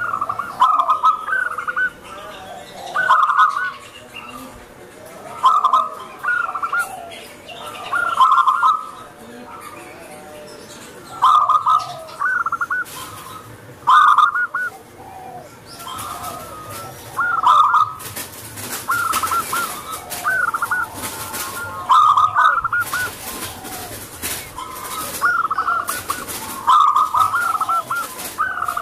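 Zebra dove cooing its song: phrases of quick, staccato trilled coos, repeated every two to three seconds. A rushing hiss joins for several seconds in the second half.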